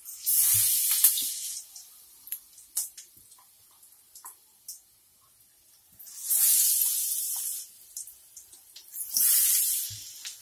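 Hot oil in a wok sizzling as besan-battered potato balls are dropped in one at a time. There are three loud bursts of sizzling, about a second in, around six seconds and near nine seconds, with faint crackling between.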